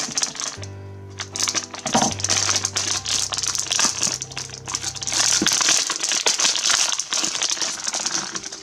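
Plastic blind-bag wrapper crinkling as it is torn open and the wrapped figure pulled out. Low, steady music notes sound under it for the first five seconds or so.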